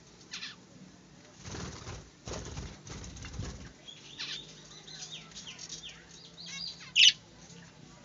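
Budgerigars: a flurry of wing flapping about a second and a half in as one flies up to a perch, then a run of short high chirps. The loudest sound is a single sharp chirp near the end.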